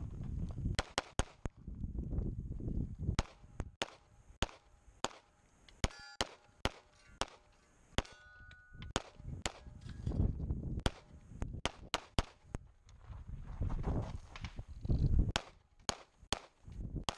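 CZ75 Shadow pistol fired rapidly, in quick strings of two or three shots separated by short pauses, dozens of shots in all. A low rumble sounds between the strings.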